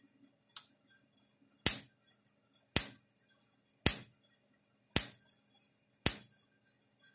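Electric Shepherd ESM 200 electric fence energizer pulsing about once a second, each pulse a sharp snap of a spark jumping the air gap between the fence terminal and ground. The first snap is weaker than the rest.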